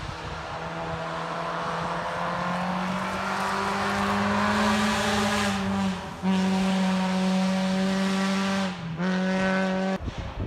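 Gravel rally car's engine held at high revs as the car approaches, its pitch slowly climbing, with brief dips at gear changes about six and nine seconds in. The engine note drops away suddenly near the end.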